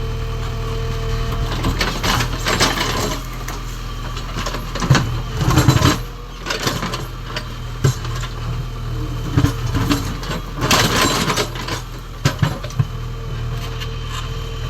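JCB 3DX backhoe loader's diesel engine running steadily, with irregular bursts of scraping and clanking as the backhoe bucket digs into stone.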